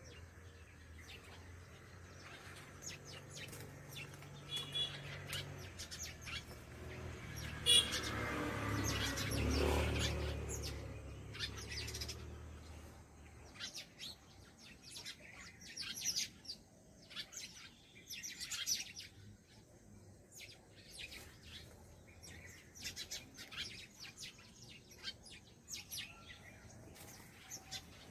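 Small birds chirping in short high calls, repeated irregularly throughout. A low rumble swells and fades around the middle.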